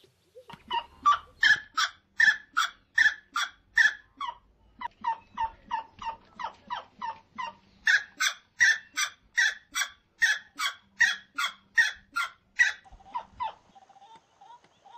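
Rail calling, most likely a grey-necked wood rail: a long series of loud, evenly repeated calls, about two to three a second, with a short pause about four and a half seconds in.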